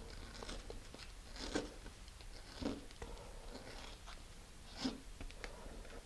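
Small aluminum tube end being rubbed and rotated on fine-grit sandpaper to break the burr off its edge: faint, intermittent scratching, with a few slightly louder strokes.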